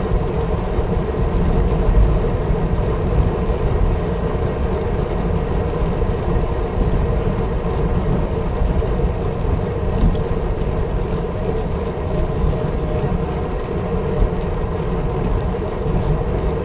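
Steady low rumble of wind buffeting the microphone, with road noise from a moving bicycle.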